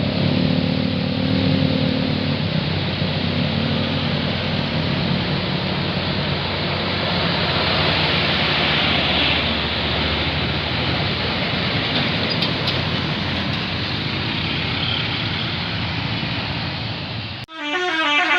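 Bus engine running with loud, dense road noise and low engine tones, strongest in the first few seconds. About a second before the end the sound cuts abruptly to a multi-tone bus air horn beginning a shifting melody.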